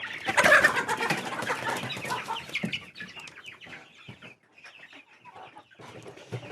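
Hens clucking, busy and loud for the first two seconds or so, then dying down to scattered quiet clucks.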